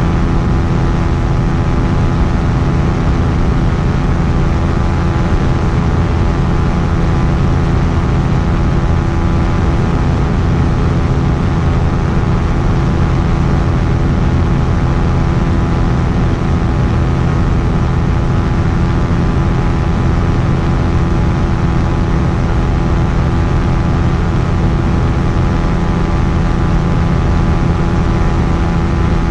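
Quicksilver Sport 2S ultralight's engine and propeller running steadily at an unchanging speed, a dense, even drone.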